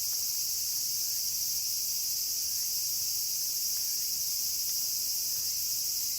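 Crickets chirping in a steady, high-pitched night chorus.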